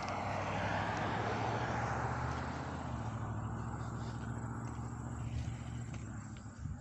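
A road vehicle driving past on the road alongside: tyre and engine noise swells in the first couple of seconds, then fades as it moves away, over a steady low hum.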